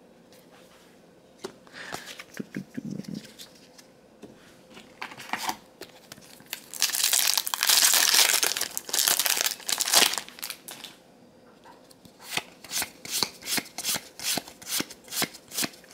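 Crinkling of a foil Magic: The Gathering booster-pack wrapper, loudest for about three seconds in the middle. Near the end come quick, even card flicks, about three a second, as trading cards are snapped through one at a time.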